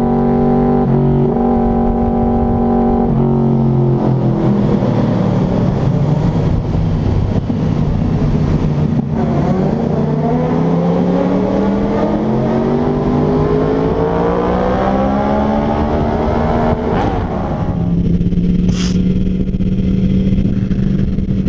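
Sport motorcycle engines running at speed. The pitch holds with sudden jumps, sinks as the bikes slow, then climbs steadily through a long acceleration and settles to a steady cruise near the end.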